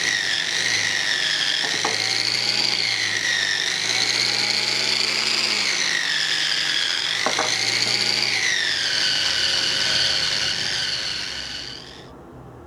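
High-pitched whine of a small electric power tool running, its pitch dipping and recovering as it is pressed into the work, with a couple of light knocks. It winds down and stops near the end.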